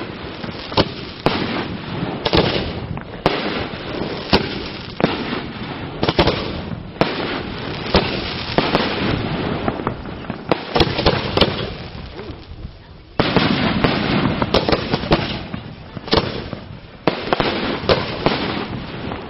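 Fireworks display: aerial shells bursting with many sharp bangs over a continuous crackle, the loudness jumping suddenly about 13 and 17 seconds in.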